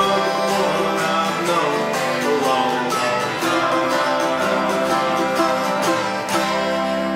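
Acoustic guitar played solo, a country tune picked and strummed.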